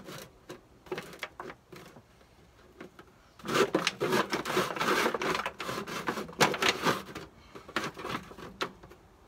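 Clicks, knocks and scraping of meat being handled on the metal cooking grate of an Oklahoma Joe's offset smoker, with a loud stretch of rustling and scraping in the middle.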